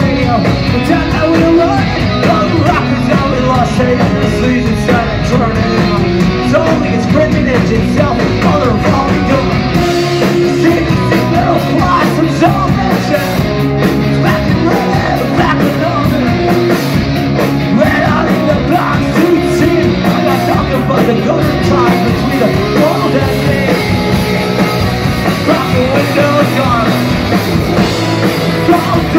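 Punk rock band playing loud live: electric guitars and a drum kit, with a singer's voice at times.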